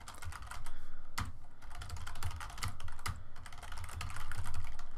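Typing on a computer keyboard: a fast, continuous run of key clicks with a few louder keystrokes mixed in.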